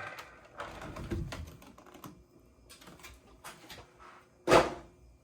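Light clicks, taps and rustles of model-kit parts and packaging being handled, with one sharper knock about four and a half seconds in.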